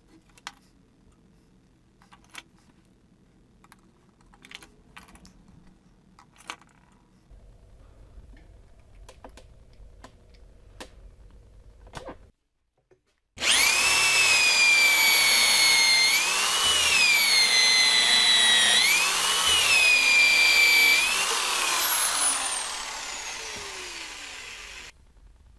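A few light clicks and knocks of small parts being handled, then an electric drill running loud, boring into a hardwood block. Its whine dips and rises in pitch several times as the bit loads and the speed changes, then runs down in pitch as the drill slows near the end.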